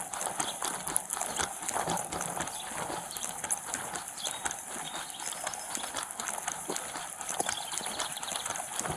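Irregular light clicks and knocks, several a second, over a steady hiss.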